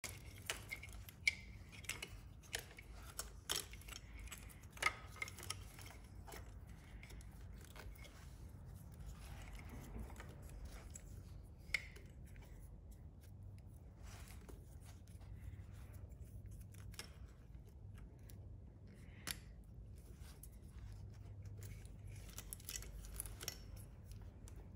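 Plastic fuel injector wiring connectors being handled, unclipped and pushed together by hand: a quick run of sharp clicks and rubbing in the first few seconds, then a few single clicks later, over a low steady hum.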